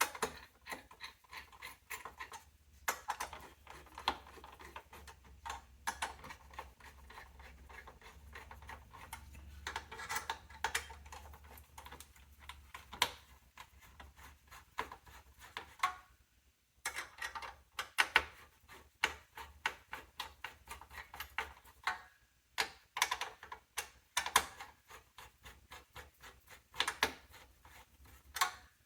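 Irregular small clicks, taps and scrapes of hard plastic and metal computer parts and tools being handled inside an open small-form-factor desktop PC, with a few short pauses.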